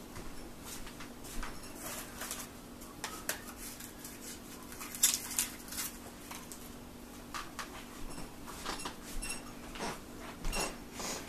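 Scattered clicks, taps and rustles of small objects being handled, a couple of them sharper and louder, over a faint steady hum.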